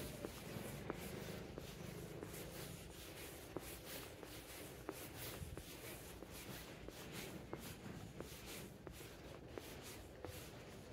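Faint, evenly paced footsteps, about three steps every two seconds, over a low steady background rumble.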